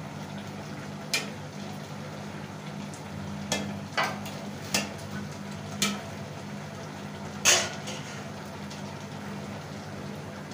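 A pot of fish curry bubbling on a gas burner turned to full flame, with a steady low hum. Several sharp metallic knocks and clinks come in, clustered around the middle, and the loudest is near the end.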